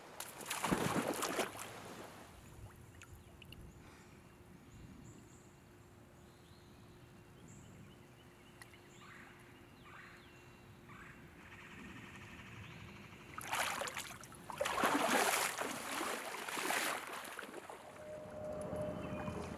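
Shallow river water splashing and sloshing in two spells, a short one about half a second in and a longer one from about two-thirds of the way through, with quieter running water in between.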